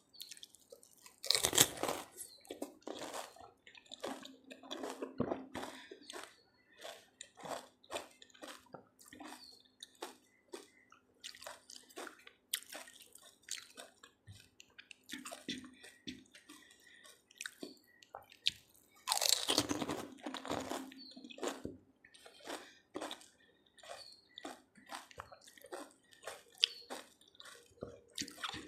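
Close-miked eating of pani puri: two loud crunching bites into the crisp hollow puri shells, one about 1.5 s in and another about 19 s in, each followed by a long run of wet chewing with small crackles.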